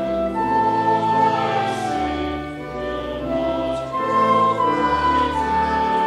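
Slow choral music: a choir singing long-held notes over a sustained accompaniment with a deep bass.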